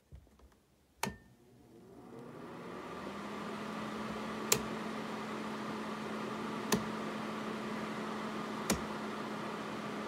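Aikoper ceramic space heater switched on with a click of its control knob; its fan spins up over about two seconds into a steady whir with a low hum. The knob clicks three more times as it is turned.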